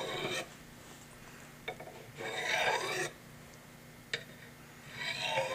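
A knife edge drawn lightly down ceramic honing rods: a hissing scrape about a second long, repeated about every two and a half seconds, with a couple of short clicks of the blade against the rods between strokes.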